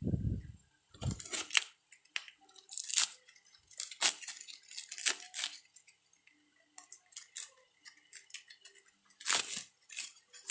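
Packaging around a bicycle chain being cut and torn open, in a series of short, irregular rips and rustles.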